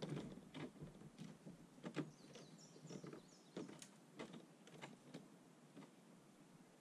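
Faint, irregular knocks and clicks of a metal-tube awning frame being handled and folded against a camper trailer, with a couple of louder knocks.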